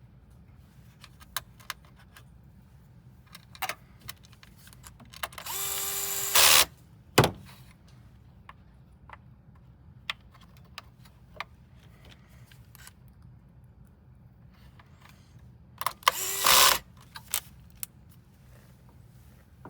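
Small electric screwdriver whirring in two short bursts, each about a second long and roughly ten seconds apart, as it drives screws. A sharp click comes just after the first burst, and light clicks and taps of small parts and screws fall in between.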